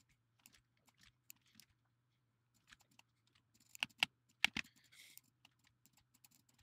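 Faint, sparse clicks of a computer keyboard and mouse, with a quick cluster of louder clicks about four seconds in, over a faint steady low hum.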